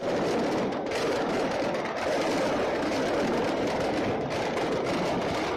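Train passing at a rail crossing: a loud, steady noise with brief dips in its higher sounds about a second in and again a little after four seconds.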